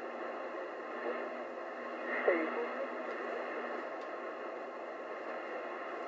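Royce 619 CB radio receiver hissing with band static while no station is talking. About two seconds in there is a brief falling tone with a small pop.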